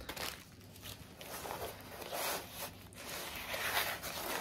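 Paper wrapping and a rolled diamond-painting canvas rustling as they are unrolled and handled, in several short bursts.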